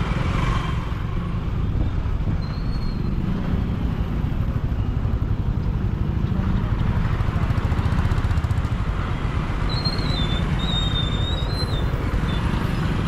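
Motorcycle engine running at low speed in heavy traffic, under a steady low rumble of surrounding engines and road noise. A short high squeal comes about two and a half seconds in, and a few more around ten to twelve seconds in.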